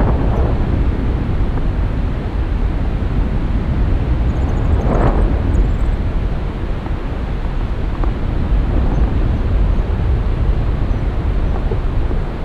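Wind from flight rushing over the microphone of a stick-held action camera under a tandem paraglider: a steady, loud low rumble, with a brief stronger gust about five seconds in.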